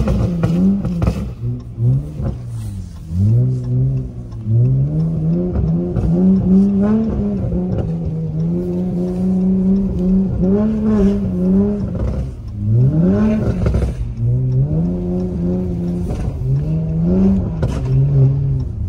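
Car engine accelerating, its pitch climbing steeply and dropping back several times (hardest about thirteen seconds in), with steady cruising stretches in between.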